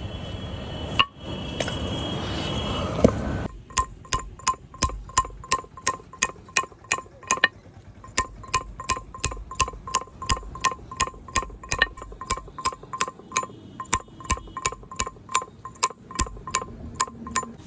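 Steel chisel chipping the edge of a sandstone grinding slab: a steady series of sharp taps, about three a second, each with a short metallic ring. It is preceded by a few seconds of rushing noise with two knocks.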